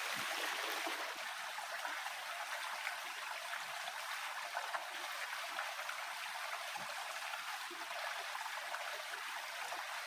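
Shallow stream running steadily over rocks and gravel.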